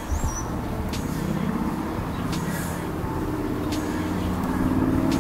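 A motor vehicle's engine running, a steady low hum that grows louder over the few seconds.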